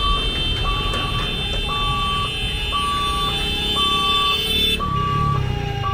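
Railway level-crossing warning hooter beeping about once a second, each beep a steady high tone, over the low rumble of motorbikes and traffic crossing the tracks.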